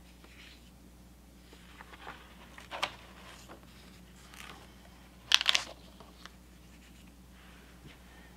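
Paper pages of a spiral-bound planner being turned by hand, each turn a brief rustle; the loudest comes a little past five seconds in, with a smaller one near three seconds.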